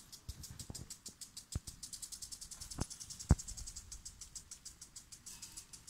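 Cricket trilling in fast, even, high-pitched pulses, about nine or ten a second, with a few low knocks between one and a half and three and a half seconds in, the last of them the loudest sound.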